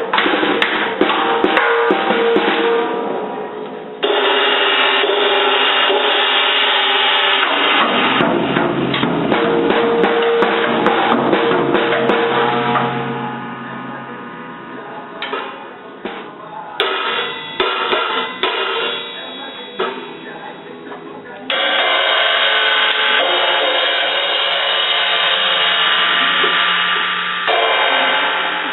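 A child banging on a drum kit: a dense run of drum hits with cymbals ringing, easing to scattered hits through the middle, then loud crashing again.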